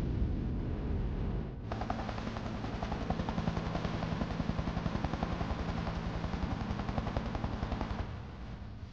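Low wind rumble, then from about two seconds in the fast, even chop of helicopter rotor blades over an engine hum, which cuts off near the end.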